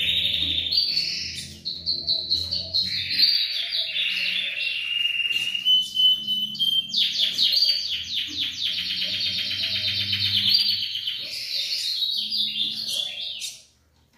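Caged female ultramarine grosbeak (azulão) calling in a long run of chirps and whistled notes, with a fast trill in the middle, stopping shortly before the end. These are the calls of a female in breeding condition soliciting mating.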